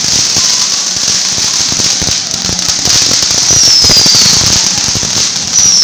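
Hand-held fireworks spraying sparks: a loud steady hiss with a rapid crackle of pops, and two high whistles that fall in pitch, one midway and one near the end.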